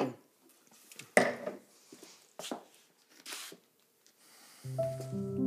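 A few short breaths from people standing close together. About four and a half seconds in, soft background music of long held chords comes in.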